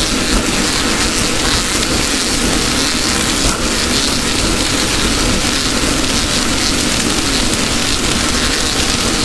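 Off-road race car driving at speed: a loud, steady rush of mechanical noise with no clear engine pitch.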